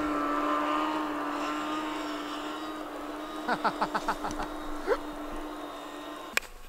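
Snowmobile engine running at a steady pitch and slowly fading as it pulls away across the frozen lake, with a brief rapid stutter and one quick rising note near the middle.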